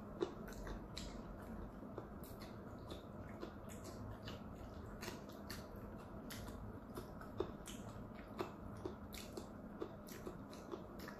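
Close-miked mouth sounds of chewing soft food: irregular wet smacks and small clicks, a few every second, over a faint steady hum.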